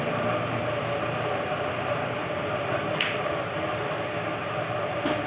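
A steady mechanical hum. About three seconds in comes a single sharp click of snooker balls striking.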